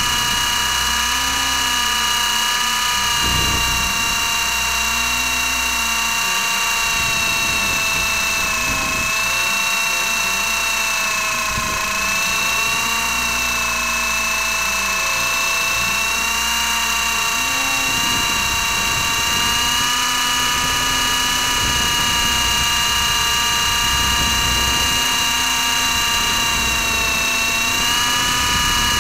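Onboard motor whine and propeller noise of a small remote-controlled aircraft carrying the camera, a steady high-pitched drone whose pitch dips and recovers slightly a few times as it hovers.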